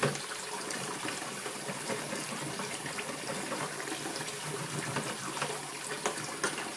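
Kitchen tap running a steady stream of water into a metal saucepan in the sink, splashing as it fills the pan.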